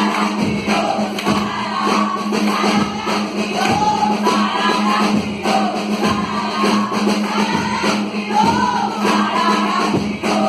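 Choir singing a song over musical accompaniment with a steady beat and a low held note.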